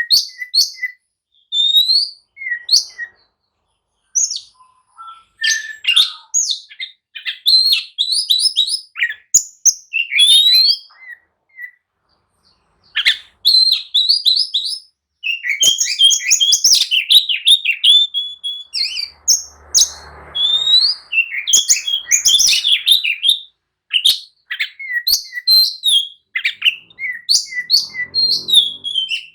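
Oriental magpie-robin (kacer) singing loudly in a fast, agitated run of varied whistles and chirps, phrase after phrase with brief pauses: the full, aggressive song known as 'gacor emosi'.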